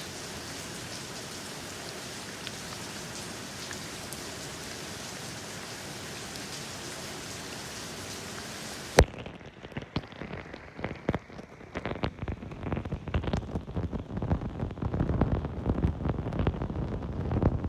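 Steady rain falling, an even hiss. About halfway through a sharp click cuts it off, and a duller, irregular low thumping and rumbling takes over, growing louder toward the end.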